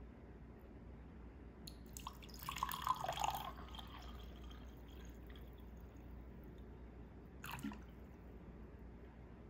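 Tea poured into a ribbed glass tumbler: a splashing pour starts a little under two seconds in and lasts about two seconds. One short sound follows near the end.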